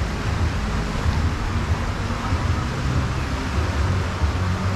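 Steady outdoor street noise: an unbroken low rumble with hiss and no distinct single event.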